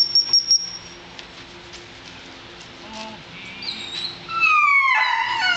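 A gundog training whistle blown in a quick string of about five short, high pips in the first second. About four seconds in, a Labrador Retriever puppy whines several times, each whine high and falling in pitch.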